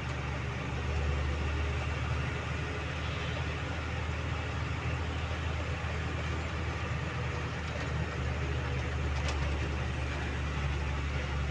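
Heavy diesel engine of a construction vehicle running steadily at low revs, a constant low hum. A single brief click comes about nine seconds in.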